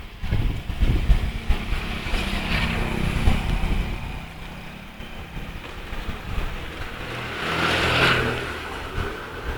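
Motor vehicle traffic passing: a low engine hum, and a vehicle that swells and fades, loudest about eight seconds in.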